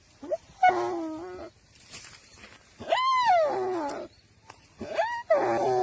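A live prey animal crying out in distress as a Komodo dragon eats it: three loud, drawn-out cries, the middle one rising and then falling in pitch.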